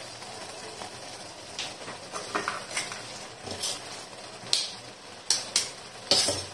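Potato, onion and tomato mixture with eggs cooking in a pan with a steady sizzle. A string of short, sharp taps and clinks runs through it, loudest near the end.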